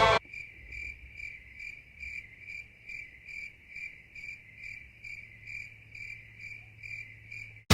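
Crickets chirping, the stock 'awkward silence' sound effect: short, evenly spaced high chirps, about two a second.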